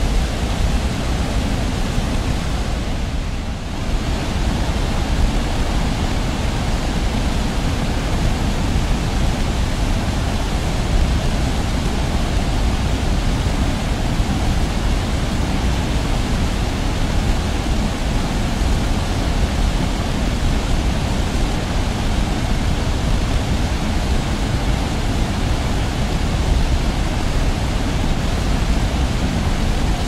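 Steady rushing of a large waterfall, a dense even noise with no pitch, dipping briefly about three and a half seconds in.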